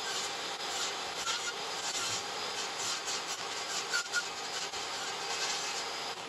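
Table saw running with its blade cutting pallet wood, trimming the corners off a panel in short passes to round it into a disc. The sound is steady throughout and stops abruptly at the end.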